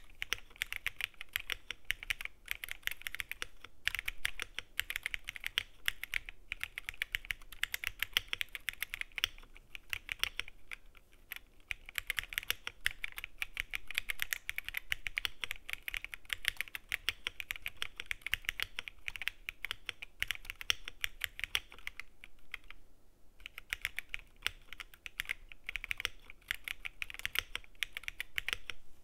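Rapid, continuous typing on an Akko ACR75 V2 mechanical keyboard with stock Akko CS Sakura linear switches. There is a short break in the keystrokes about three-quarters of the way through.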